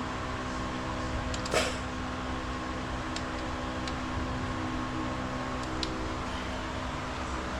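Steady machine hum, with a few light metal clicks and one louder clink about one and a half seconds in, from hand tools working on the motorcycle's gear-shifter bolts.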